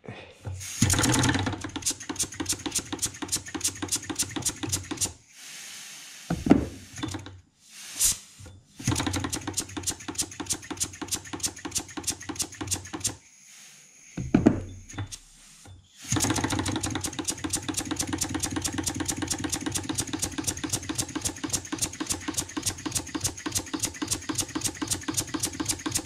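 Model wobbler (oscillating-cylinder) engine running slowly with a fast, even chuffing from its cylinder, being throttled down toward its slowest running speed of about 200 RPM. In the first part it falters and stops several times and picks up again, with one sharp knock. From about two-thirds of the way through it runs steadily.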